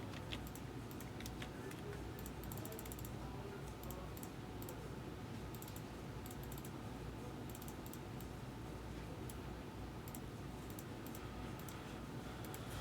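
Faint computer-keyboard typing: scattered runs of light key clicks with short pauses between them, over a low steady room hum.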